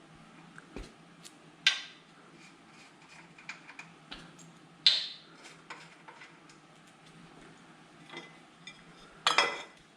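Metal parts and hand tools being handled and set down, giving sharp metallic clinks: a loud one about two seconds in, another about five seconds in, and a ringing cluster near the end, with lighter ticks between.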